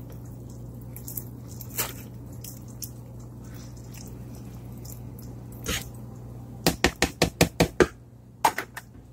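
Pot of broth simmering under soaking rice-noodle blocks, with scattered drip-like pops over a steady low hum, then a quick run of about eight sharp pops lasting under two seconds, followed by two more near the end.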